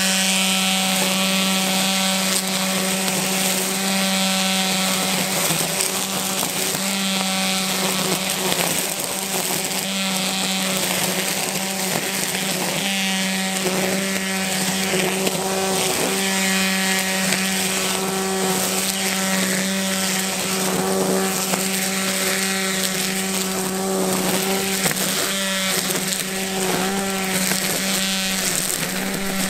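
EGO Power+ carbon-shaft cordless string trimmer running at full speed, its twisted line whirring as it cuts tall grass. A steady whine that holds its pitch under the load and does not slow down.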